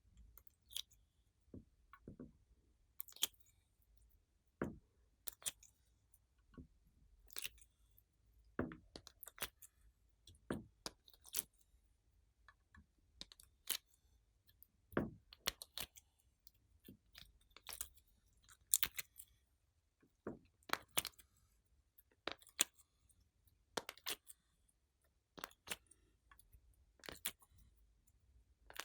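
Glossy slime being worked by hand, giving irregular sticky clicks and pops, about one or two a second.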